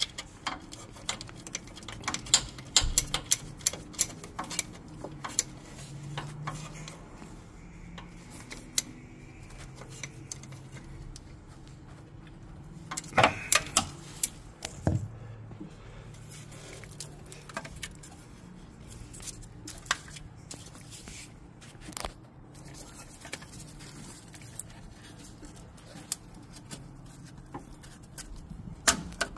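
Scattered light clicks and metallic clinks of a hand ratchet, bolts and a plastic electrical connector being handled while an ABS module is fastened and reconnected. A louder cluster of clicks comes about 13 seconds in.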